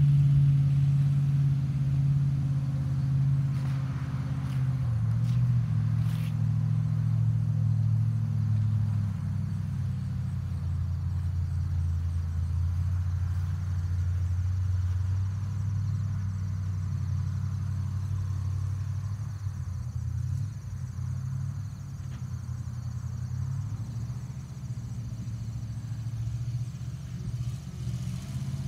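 1959 Chevrolet fire truck's engine running as the truck drives off. The engine note drops in pitch and fades over the first ten seconds, holds low, then rises and grows louder near the end as the truck drives past.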